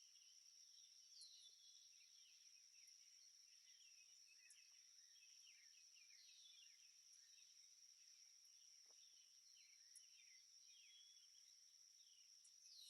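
Faint, steady, high trilling of crickets, with many short, falling bird chirps scattered over it throughout.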